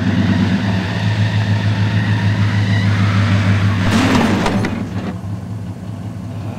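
Pickup truck engine running with a steady low hum as the truck drives up. A brief rush of noise comes about four seconds in, and the engine sound eases off near the end.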